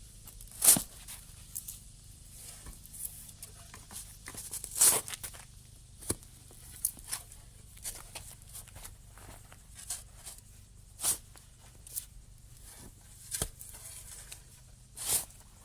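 Digging in garden dirt: irregular scrapes and crunches of a tool working into soil, the loudest strokes about a second in, near five seconds and near the end.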